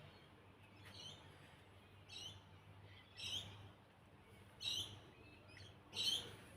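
Click 1200mm ceiling fan running on low speed with a quiet, steady motor hum. Short high chirps repeat about every second and a half over it.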